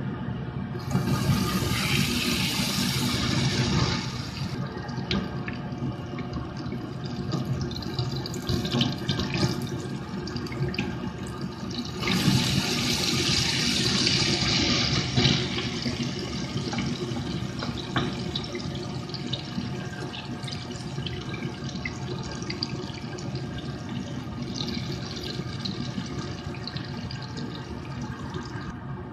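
Hot oil sizzling and crackling steadily around an eggplant omelette shallow-frying in a pan. The sizzle surges louder and brighter twice, about a second in and again about twelve seconds in.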